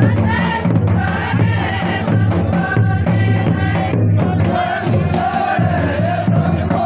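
Jaunsari Harul folk song sung in chorus by the line of dancers, over a steady low beat.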